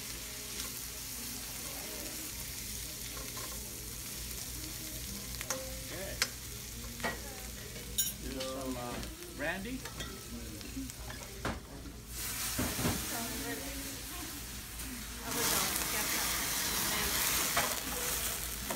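Steak sizzling in a stainless frying pan over a gas burner, with a few sharp clinks of a utensil against the pan. The sizzle turns much louder for the last few seconds as the pan flares up in a flambé.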